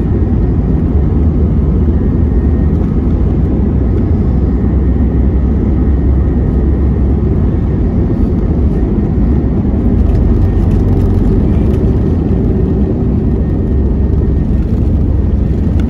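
Steady, loud cabin noise of an Airbus A320-232 with its IAE V2500 turbofans under power, a deep even rumble with a faint steady whine on top in the second half.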